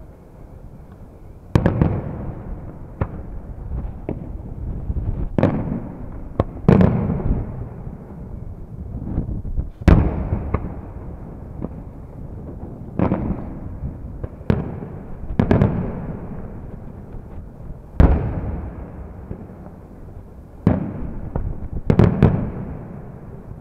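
Aerial firework shells bursting overhead: about a dozen sharp bangs at irregular intervals, each trailing off in a long low echo.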